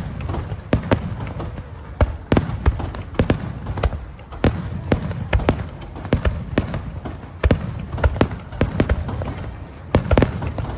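Fireworks going off in a rapid, irregular series of sharp bangs over a low rumble, with crowd voices underneath.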